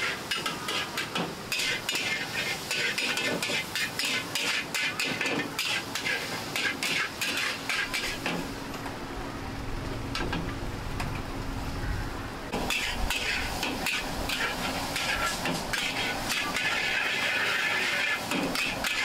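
Metal spatula clanking and scraping rapidly against a wok while stir-frying flat rice noodles over a gas burner, with the hiss of food frying. The clanking eases off briefly around the middle, and the frying hiss grows louder near the end.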